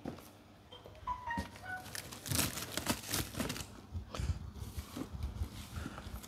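Plastic wrapping crinkling and rustling as wrapped cordless rotary hammers are handled and shifted, with light knocks of the tools against each other.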